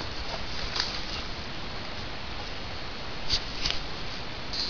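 Rustling of dry leaves and brush as a person moves through thick undergrowth, with a few short sharp clicks of twigs or gear, two of them close together near the end.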